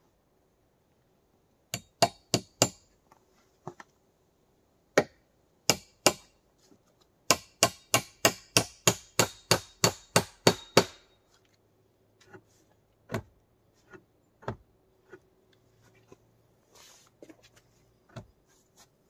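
Hammer blows on wood: a few single strikes, then a quick run of about a dozen blows, about three a second, ending about 11 seconds in, followed by a few fainter, scattered knocks.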